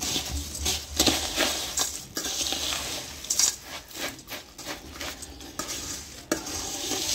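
A metal spoon stirring and tossing a dry puffed-rice bhelpuri mix in a stainless steel bowl: the crisp ingredients rustle and the spoon scrapes and clinks against the bowl in repeated uneven strokes.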